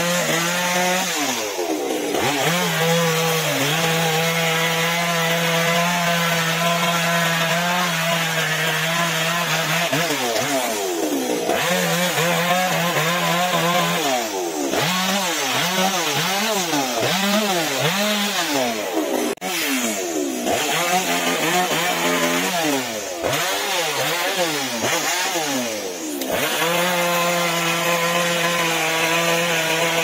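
Chainsaw running while cutting into a big tree trunk. The engine note holds steady and high at the start and near the end, and through the middle it rises and falls repeatedly as the saw works through the wood.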